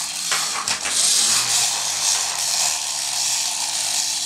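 Small battery toy vacuum cleaner running, a steady whirring hiss with a faint hum under it and a few light clicks.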